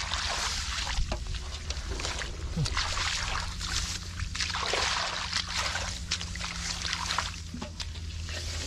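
Hands groping and sloshing in shallow muddy water, with irregular splashes and trickles.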